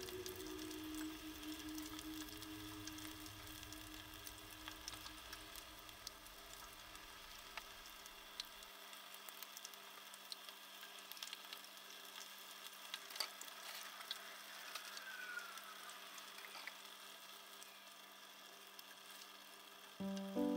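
Channel-catfish fish cakes deep-frying in a frying pan of oil: a faint steady sizzle with scattered small crackling pops.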